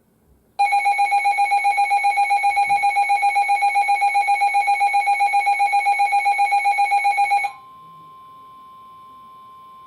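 A loud electronic alert tone warbling at about seven pulses a second for roughly seven seconds. It then cuts to a steady, quieter single tone, the NOAA Weather Radio warning alarm tone that signals a new weather warning.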